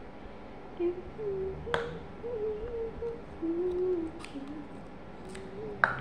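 A child humming a wordless tune in short held notes, with a few sharp taps about two seconds in and again near the end.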